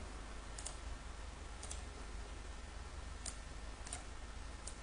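Five faint computer mouse clicks at irregular intervals, over a low steady hum.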